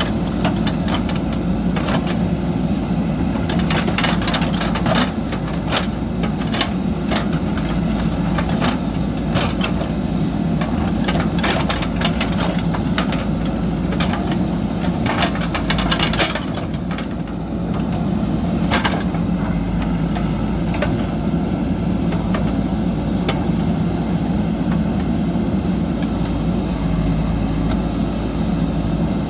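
JCB backhoe loader's diesel engine running steadily under load while digging, with frequent sharp knocks and clatter from the bucket and soil, thinning out after about two-thirds of the way through.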